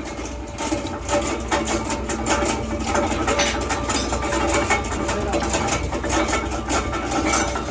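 Workshop press machine running with a steady hum and a rapid, uneven mechanical clatter.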